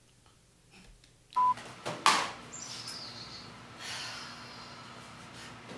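A short, high electronic beep about one and a half seconds in, then a sharp knock and a steady hiss with a brief falling whistle.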